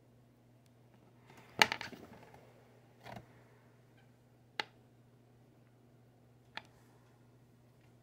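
A few short clicks and knocks from a small plastic fidget toy handled against a tabletop. The loudest comes about one and a half seconds in with a brief rattle, and three fainter ones are spread over the following seconds. A faint steady low hum lies underneath.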